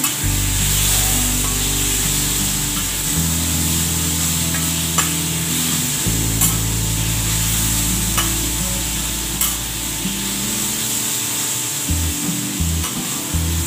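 Chicken pieces sizzling on a hot flat-top steel griddle, with a metal spatula scraping and clicking against the plate a few times as it pushes them together.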